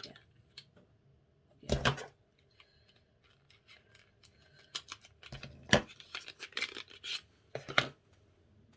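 A lip liner pencil being slid out of its slim cardboard box and handled, with light clicks, scrapes and rubbing. The three loudest scuffs come about two seconds in, near six seconds and near eight seconds.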